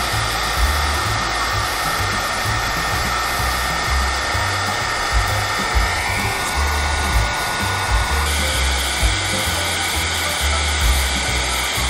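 Hand-held hot-air dryer blowing steadily, used to melt wax at a beehive entrance; its tone shifts slightly about six seconds in and again about eight seconds in. A low background music beat pulses underneath.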